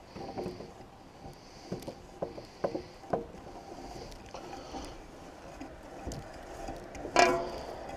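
Light knocks and clicks of parts and tools being handled on a wooden picnic table, with one louder knock and a short ring about seven seconds in.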